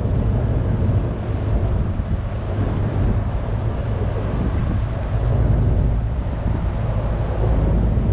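Wind buffeting the microphone over a steady low rumble.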